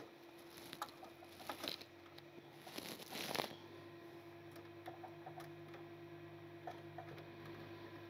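Faint clicks and rustles of SATA cables and their plastic plugs being handled and pushed into place inside a desktop PC case, the loudest cluster about three seconds in, over a faint steady hum.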